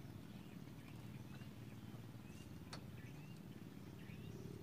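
Faint open-air ambience over water: a low steady rumble with a few short, high bird chirps, and a single sharp click a little past the middle.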